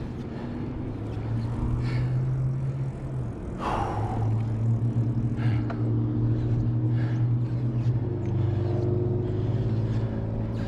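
Bicycle riding noise heard from a handlebar-mounted camera: a steady low hum from the rolling bike, with light clicks and rattles. Road traffic runs alongside.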